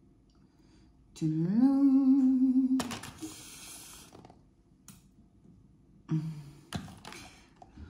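A woman hums one note that rises and then holds for about a second and a half. A short crinkly rustle of a plastic fruit tray follows as blueberries are picked out of it. A brief second hum and a light click come near the end.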